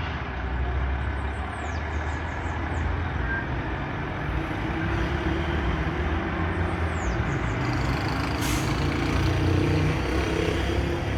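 Truck tractor unit's engine running with a steady low rumble, getting a little louder in the second half.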